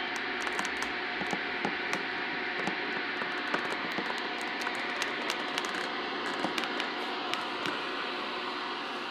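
Steady hissing noise with many irregular crackles and clicks scattered through it, several a second. Near the end the crackles thin out.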